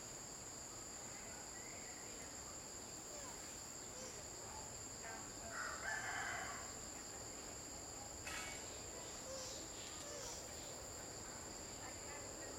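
Steady high-pitched drone of insects, with a louder animal call lasting about a second roughly halfway through and a short click a couple of seconds later.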